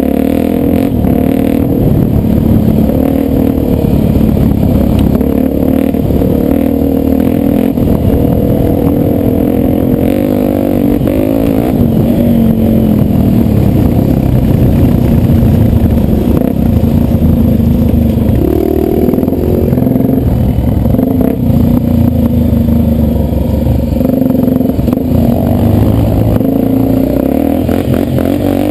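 Honda trail bike's single-cylinder four-stroke engine running hard, its pitch rising and falling as the throttle opens and closes, with one clear rev-up about two-thirds of the way through.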